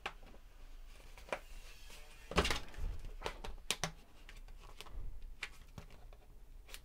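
Scattered light clicks and taps, with the strongest cluster about two and a half seconds in.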